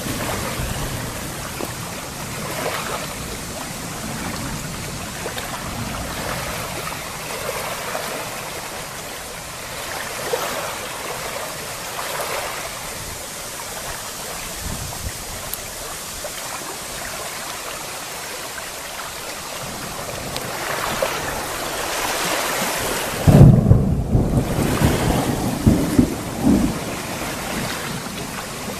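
Thunderstorm ambience: a steady hiss of wind and rain. Near the end, thunder rumbles loudly and low for a few seconds, with a few sharp cracks in it.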